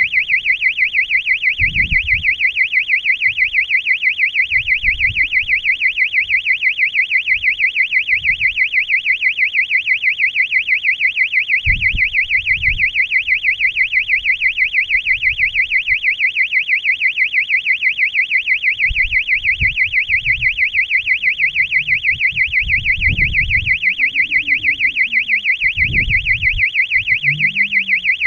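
Electronic beeper on a high-altitude balloon payload sounding a fast, even train of high-pitched beeps without a break, with scattered low thumps of the payload being jostled.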